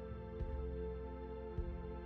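Calm background music of held, sustained tones, with two soft low beats a little over a second apart.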